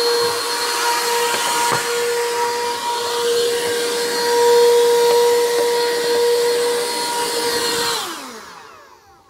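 Vacuum cleaner running with a steady motor whine, switched off near the end, its pitch falling as the motor spins down.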